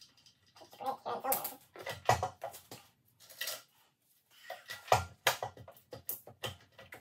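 Irregular metallic knocks, clicks and short squeaks as parts of a BMW M52 inline-six engine on an engine stand are handled and worked loose during teardown. The sharpest knocks come about two seconds and five seconds in.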